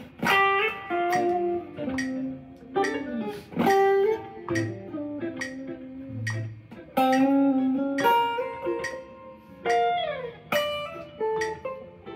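Two clean electric guitars, a Telecaster-style and a Stratocaster-style, playing together in a jazz-style duo: chords with improvised single-note lines. There is a quick downward run of notes about ten seconds in.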